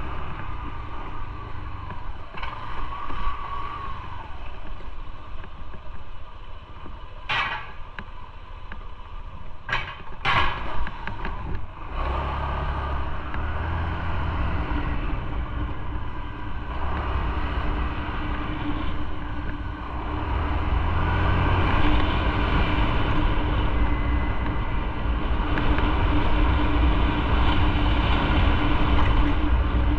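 Motorcycle running under way, its engine and road noise continuous. A few short sharp sounds about a third of the way in. The engine grows louder about halfway through, then holds a steady note.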